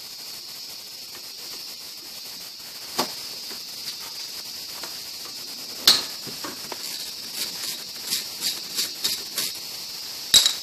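Metal clicks and clinks of a wrench working the lower 15 mm caliper bolt on a Toyota Camry's front brake: single sharp clicks about 3 and 6 seconds in, a run of smaller quick clicks after that, and a louder clink near the end, over a steady faint high hiss.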